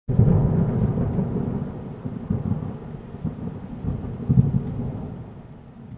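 Thunder rumbling with a hiss of rain, starting suddenly and loud, swelling twice more, then fading away.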